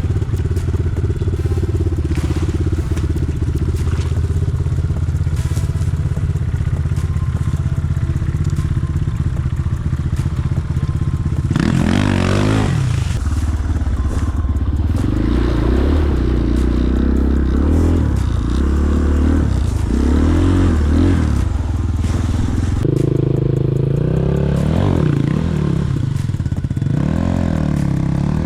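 Enduro motorcycle engine running at a steady low speed, then revved up sharply about twelve seconds in, with the revs rising and falling repeatedly after that as the bike is ridden over rough ground.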